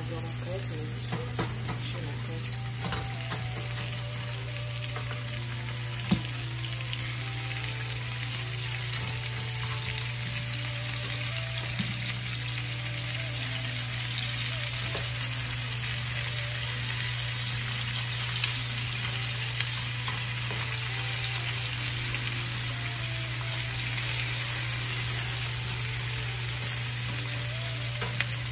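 Onions, green peppers and pieces of fried fish sizzling steadily in a nonstick frying pan as they are stirred. A wooden spatula knocks against the pan now and then, over a steady low hum.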